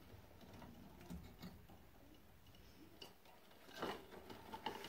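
Faint clicks and taps of a red emergency-switch faceplate being handled and fitted onto its electrical box, with a few louder clicks near the end.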